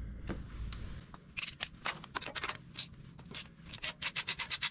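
Ratchet wrench clicking while a spark plug is being loosened from a Honda VTX 1300S cylinder head. A few scattered clicks come first, then quick, even clicking near the end.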